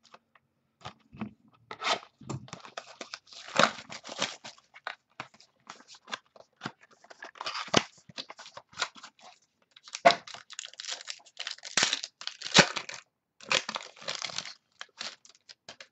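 A sealed pack of football trading cards being torn open by hand, the wrapper crinkling and tearing in short irregular bursts as the cards are pulled out.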